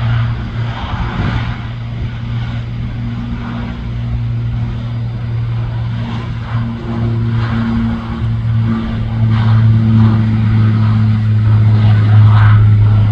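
Aircraft engine running: a steady low drone with a pitched hum, growing louder about two-thirds of the way through.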